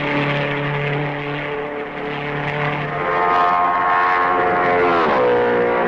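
1950s Grand Prix racing car engines at full speed, a high steady engine note. About three seconds in a louder, higher note joins, holds, then falls sharply in pitch a little after five seconds.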